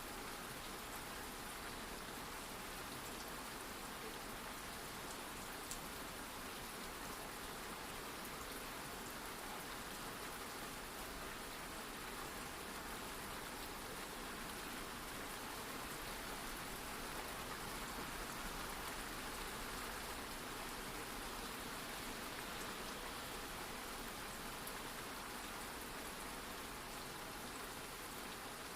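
Steady rain falling, an even, unbroken patter of drops.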